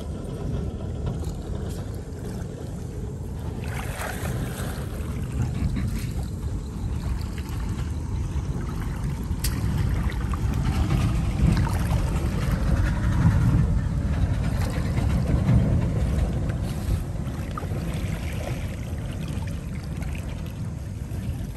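Water sloshing and splashing as a man wades and works a woven bamboo basket scoop through the water, over a steady low rumble of wind on the microphone.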